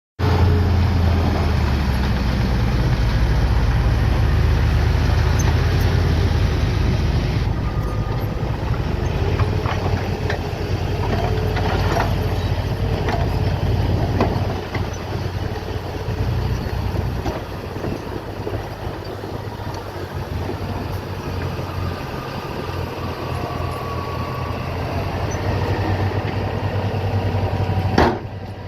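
Heavy diesel construction machinery running with a steady low rumble, loudest for the first several seconds, with a few scattered knocks and clanks about ten seconds in and a sharp knock near the end.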